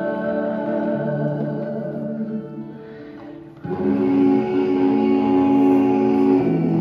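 Music of held organ-like chords, sounding like an electronic keyboard. It sinks and almost stops about three seconds in, then comes back louder half a second later.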